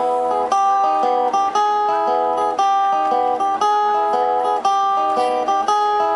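Acoustic guitar strumming chords in a steady rhythm, a new strum about every half second, as an instrumental passage with no singing.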